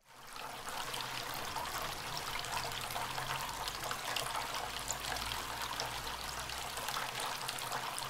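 Small bamboo fountain running: water trickling steadily from a bamboo spout onto pebbles in a bowl. It fades in at the start.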